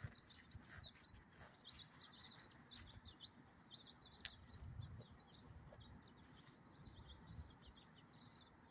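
Faint chirping of small birds: many short chirps in quick succession, over a low background rumble.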